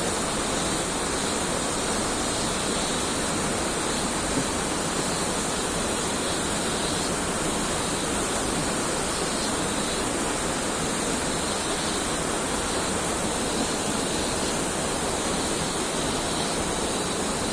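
Waterfall rushing steadily: constant falling-water noise.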